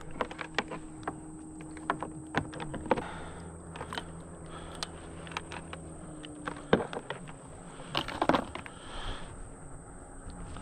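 Scattered clicks and knocks of a fish grip and paddle against a plastic kayak while a hooked golden dorado is handled alongside, with a louder clatter about eight seconds in.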